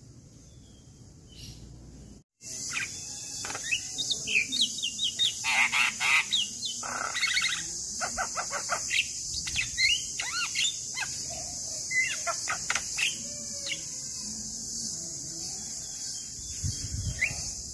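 Male Javan myna (jalak kebo) singing a fast, varied run of chattering whistles, squeaks and harsh notes, starting after a brief dropout about two seconds in. A steady high hiss runs behind it.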